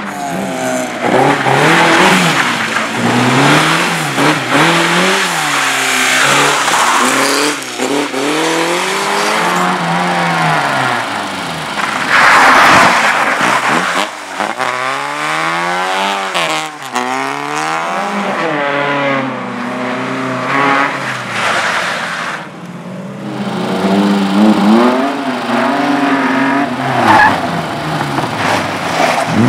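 Race car engine in an amateur slalom, revved hard and lifting off again and again, its pitch climbing and falling every second or two, with tyres squealing and skidding through the turns.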